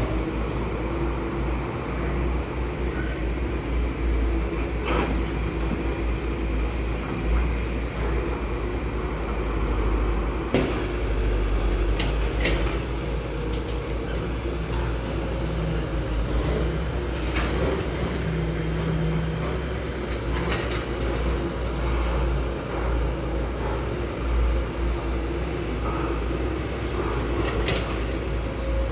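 Heavy construction machinery's diesel engine running steadily with a deep rumble, with scattered sharp metallic clanks and knocks, several in quick succession in the second half.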